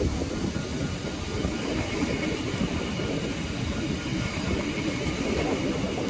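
Haeundae beach train, a small tourist rail car, passing close by with a steady rumble of its wheels on the rails.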